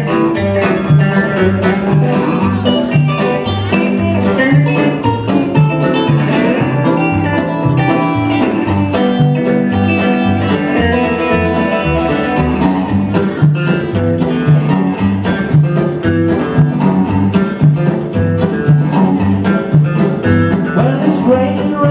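Live country string band playing an instrumental passage: upright double bass plucking a steady walking line under acoustic rhythm guitar, with fiddle, lap steel guitar and electric guitar.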